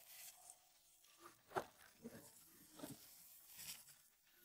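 Near silence with a few faint, short rustles from handling packets of dry fishing groundbait over a plastic mixing basin.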